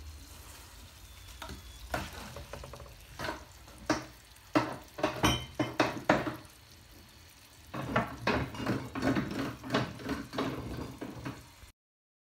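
A utensil knocking and scraping against a nonstick frying pan as mushrooms in sauce are spooned out of it onto a serving platter. There are scattered knocks at first, then a quick run of scraping and clinking that cuts off suddenly near the end.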